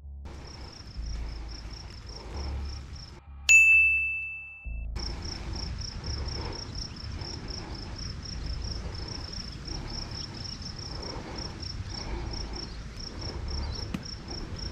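Insects chirping in a steady train of high chirps, about four a second. About three and a half seconds in, a single loud ding rings out and fades over about a second.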